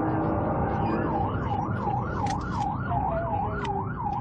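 Police car siren on the yelp setting, starting about a second in and rising and falling about three times a second, over a car engine running under way.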